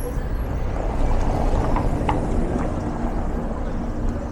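A motor vehicle's engine running close by in the street: a low rumble with a steady hum, a little louder from about a second in.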